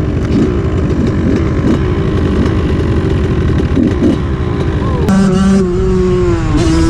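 ATV engines running, their pitch wavering up and down with light revving. About five seconds in the sound changes to a steadier engine drone with a higher whine that rises and falls.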